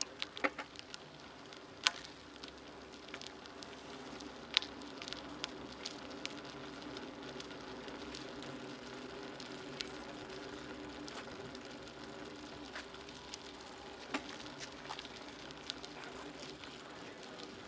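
Bicycle rolling over interlocking paving stones, heard from a camera on the bike: a steady tyre and drivetrain hum with scattered sharp clicks and rattles as it crosses the joints.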